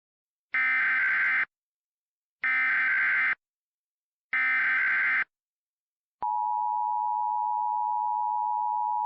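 Emergency Alert System SAME header: three bursts of warbling digital data, each about a second long, sent one after another with short silences between. About six seconds in comes a click, then the steady two-tone EAS attention signal, which holds on.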